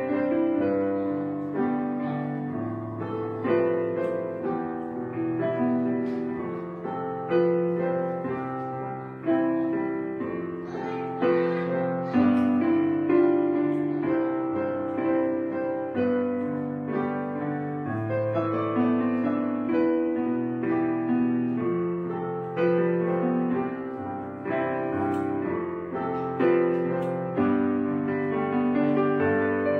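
Background piano music: a slow, gentle tune of struck notes that each fade before the next.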